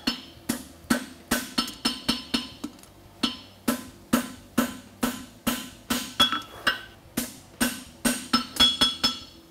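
Hand hammer striking red-hot steel bar stock on an anvil in a steady rhythm of about two blows a second, each blow ringing briefly. The blows are forging the heel caulk of a hind horseshoe, standing it upright.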